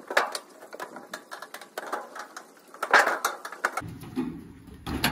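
Screwdriver prying a plastic switch block out of an oven's enamelled sheet-metal panel: irregular clicking and scraping of metal on plastic and steel, loudest about three seconds in.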